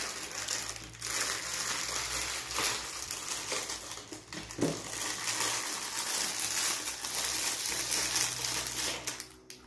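Thin plastic bag crinkling and rustling as it is pulled out of a cardboard box and handled, in a steady stream of irregular crackles.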